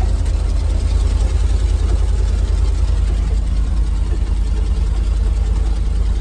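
Old Ford F-350's 352 V8 running steadily as the truck drives along a gravel road, a low, even engine sound heard from inside the cab.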